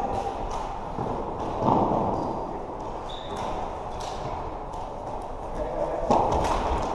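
Floorball game play: repeated sharp clacks of plastic sticks striking the ball and each other, with a couple of brief player shouts.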